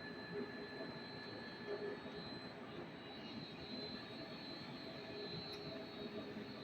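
PVC extrusion machine running steadily, a continuous mechanical whir with a high, constant whine over it.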